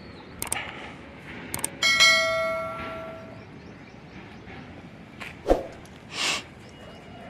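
Subscribe-button sound effect: a couple of mouse-style clicks, then a bright bell chime about two seconds in that rings out and fades over a second and a half. Later comes a sharp knock and a short hissy burst.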